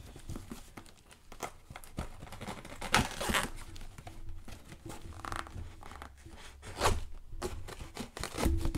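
Packing tape being torn and peeled off a cardboard box, with the cardboard crinkling and scraping as it is handled. There are many small clicks and a few louder rips, about three seconds in and again later on.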